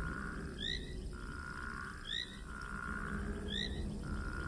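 Animal-call ambience: a short rising chirp repeats about every one and a half seconds over a steady high drone that stops and starts.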